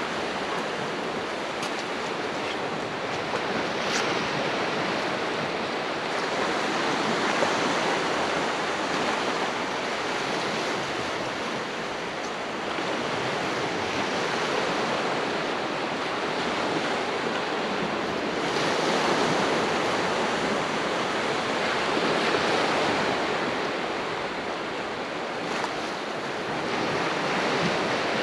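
Sea waves washing onto the shore, a steady surf noise that swells and eases every few seconds.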